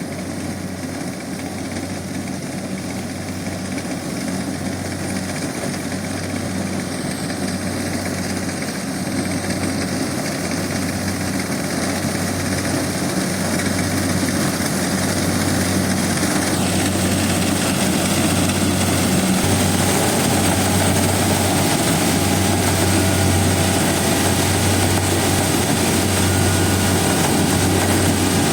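Kubota DC70 combine harvester's diesel engine running steadily under load with a low, slowly pulsing hum and mechanical clatter. It grows steadily louder, and brighter from about halfway.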